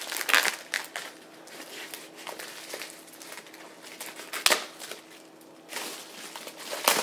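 Plastic bubble wrap rustling and crinkling as it is cut and pulled off a boxed fire alarm pull station, with a couple of sharp snaps, one about halfway through and one near the end.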